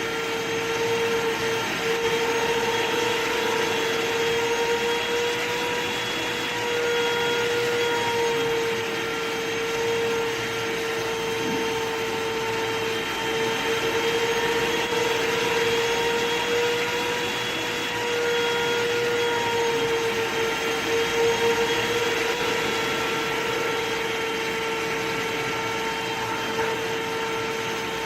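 Vacuum cleaner running continuously: a steady motor whine over the rush of air, its pitch and loudness wavering slightly.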